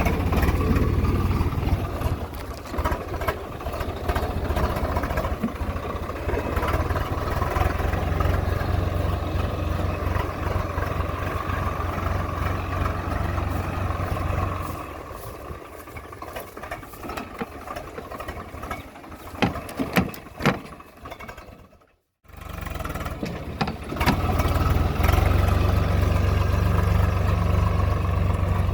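Tractor diesel engine running steadily while a rotavator tills the soil. About halfway through the drone drops off and a few sharp knocks come through. Near the end the sound cuts out completely for a moment, then the engine comes back loud.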